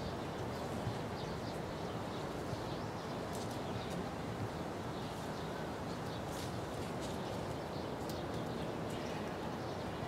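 Steady outdoor background hum with faint, scattered bird chirps.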